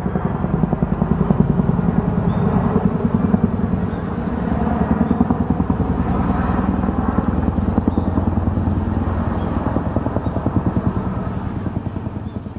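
An engine running with a rapid, even firing beat, swelling after the start and fading near the end.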